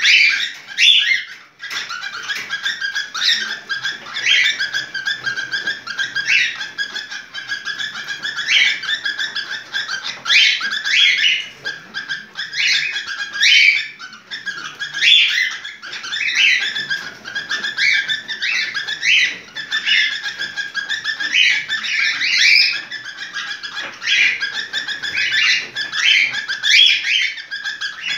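Cockatiel calling in breeding condition ('in heat'): an unbroken stream of high chirps and whistled notes, with louder rising calls about once a second.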